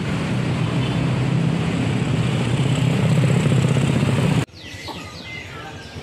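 Motorcycle engine running close by, a steady low drone that cuts off suddenly about four and a half seconds in. Quieter street sound with small birds chirping follows.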